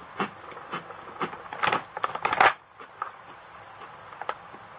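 Puffed, crunchy seaweed snack chips being chewed: a string of crisp crunches about twice a second, loudest just after two seconds in, then quieter with one last crunch near the end.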